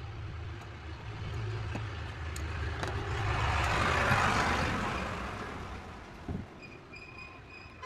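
Road traffic: a motor vehicle's low engine rumble, with a passing vehicle's noise swelling to a peak about halfway through and then fading, and a horn sounding faintly near the end.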